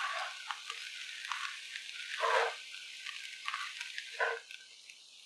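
A wooden spatula stirring and scraping cooked rice in a pan over a faint steady sizzle, with two louder scraping strokes about two and four seconds in.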